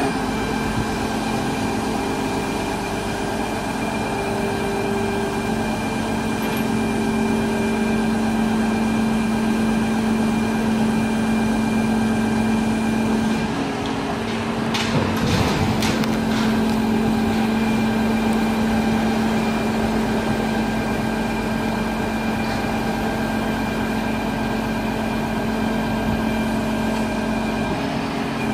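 Volvo crawler excavator running steadily, its diesel engine and hydraulics giving a continuous hum with a few held tones while the hydraulic cab riser moves the cab. About halfway the hum shifts briefly and a few clunks are heard.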